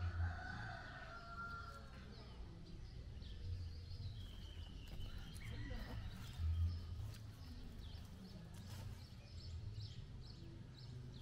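A rooster crowing once at the start, then small birds calling now and then.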